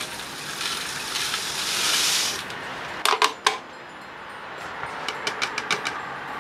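Potassium hydroxide (lye) poured from a plastic cup into a plastic jug of water, a hissing rush that builds for about two and a half seconds. Three sharp knocks follow, then a run of light taps near the end as the last pieces are knocked out of the cup.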